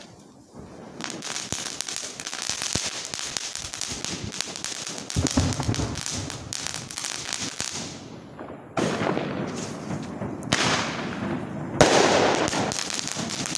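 Fireworks going off: a ground firework hisses and crackles for several seconds. Several more sudden bursts of hissing and crackling follow near the end, the loudest about twelve seconds in.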